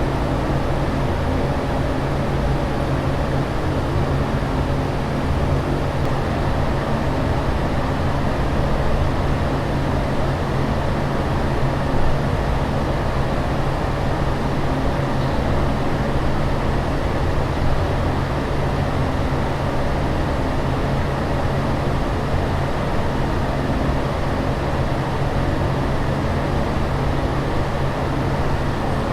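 Steady aircraft cabin noise in flight: an even rushing drone with a low hum beneath it, unchanging throughout.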